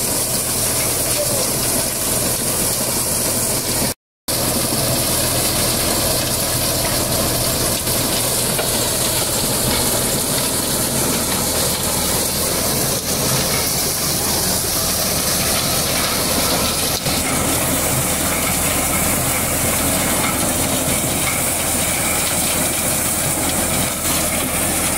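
Tractor-driven corn thresher running steadily as cobs are fed in: a constant low engine drone under a loud hiss of husks and straw being blown out. The sound drops out for a moment about four seconds in.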